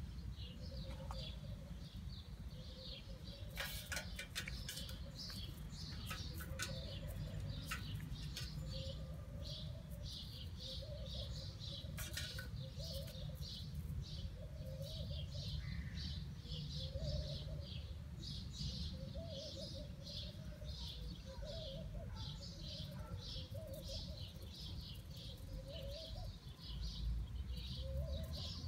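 Small birds chirping steadily, about two short high chirps a second, with a quieter lower call repeating about once a second, over a constant low rumble. A few sharp clicks come in the first dozen seconds.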